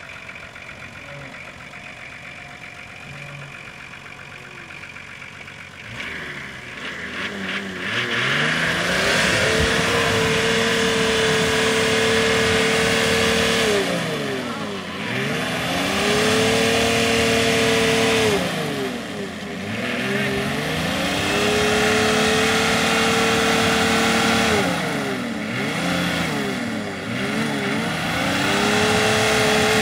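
Nissan 4x4's engine revving hard as it churns through a deep pit of mud and water, over the noise of spinning tyres and churned mud. After a quieter start the revs climb about six seconds in, then hold high in surges that drop back briefly every few seconds.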